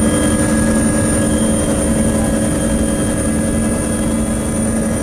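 Helicopter heard from on board, its engine and rotor running steady: a constant loud rumble with a thin, steady high whine over it.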